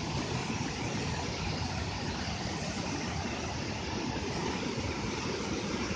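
Whitewater rapids of a fast river rushing steadily.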